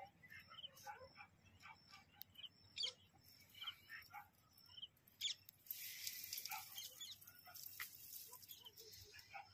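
Faint bird chirps in short, scattered calls; about halfway through, a soft hissing rustle sets in for about three seconds.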